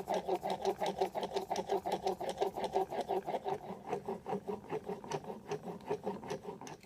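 Block plane blade held in a honing jig, rubbed rapidly back and forth on a sharpening stone at about four to five strokes a second, grinding its 25-degree bevel. The strokes stop near the end.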